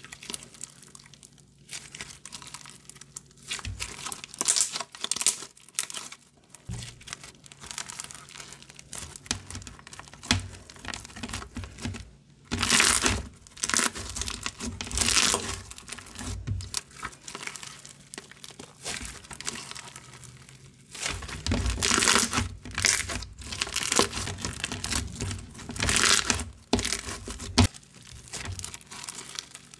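Hands squeezing, pressing and stretching a white school-glue-based slushy bead slime, the beads giving crunches that come as irregular crackling bursts.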